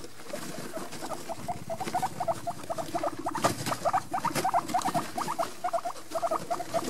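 Guinea pigs squeaking in a rapid series of short rising notes, several a second, starting about a second in. Scattered crunching and rustling of guinea pigs chewing cucumber and moving in wood-shavings bedding.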